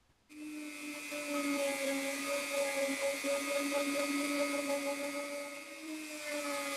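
Handheld rotary tool spinning a small polishing bit against the etched steel of an axe head. It starts abruptly just after the start and runs with a steady high whine.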